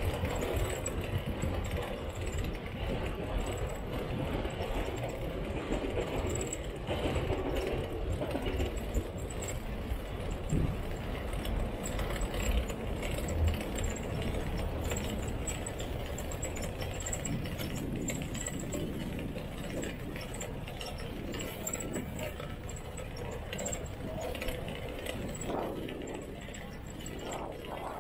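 Bicycle rear-hub freewheel ticking steadily as the bike coasts, over a low rumble.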